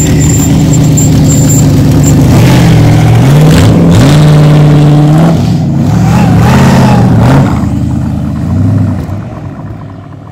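Boss Hoss V8 motorcycles pulling away, the engines revving loudly with their pitch rising and falling several times as they accelerate. About seven seconds in the sound begins to fade away.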